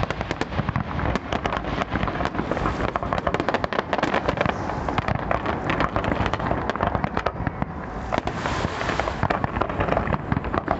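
Fireworks going off in a dense, continuous crackle of rapid pops and cracks, many a second.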